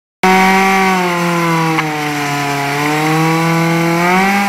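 Kawasaki Z750's inline-four engine held at high, steady revs in a stationary burnout, the rear tyre spinning on the asphalt. The pitch sags a little midway and climbs again near the end.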